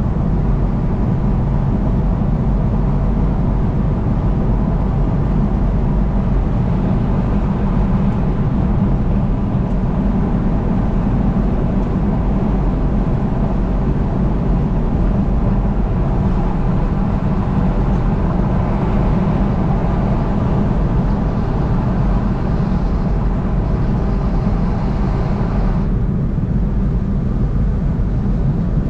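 Steady highway driving noise: a continuous low rumble of tyres and engine. A higher hiss joins it about two-thirds of the way through and cuts off suddenly near the end.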